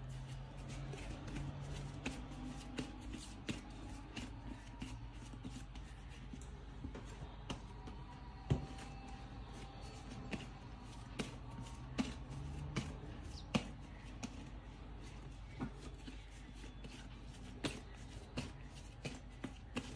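Hands rounding pizza dough into balls on a silicone baking mat: soft, scattered pats and taps of the dough against the mat, over a faint steady low hum.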